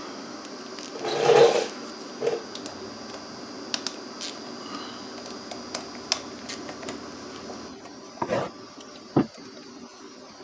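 Gloved hands and a T27 Torx driver working the screws out of the plastic choke housing on an Echo PAS-225 power head. Scattered light clicks and handling noise, with a louder rustle about a second in and two knocks near the end, over a steady background hum.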